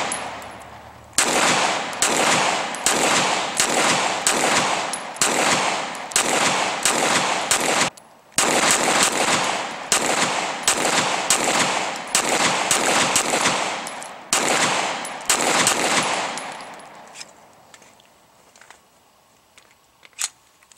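A 9mm Glock 19 pistol in a CAA Micro RONI Recon carbine kit firing about twenty shots in steady semi-automatic fire, roughly one every three-quarters of a second, each shot followed by an echo. The shooting stops a few seconds before the end, leaving only a few faint clicks.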